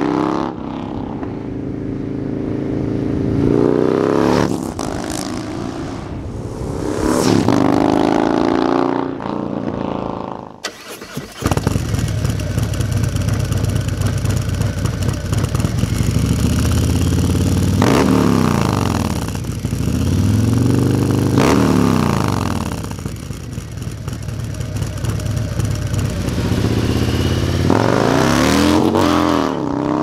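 Harley-Davidson Milwaukee-Eight 128-cubic-inch V-twin with a Feuling 521 cam, breathing through a Fullsac head pipe and S&S MK45 slip-on mufflers. For the first ten seconds or so the bike accelerates past with the pitch climbing and falling through the gears. After a cut it idles with a deep, uneven rumble and is given several quick throttle blips, each revving up and dropping back.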